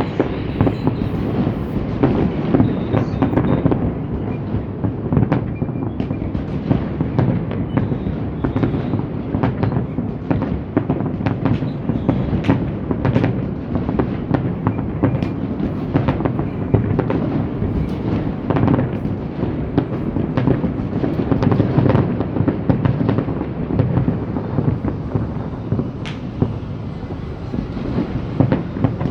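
Distant aerial fireworks going off in a dense, continuous barrage of overlapping booms and cracks with a low rumbling echo, as several fireworks shows fire at once.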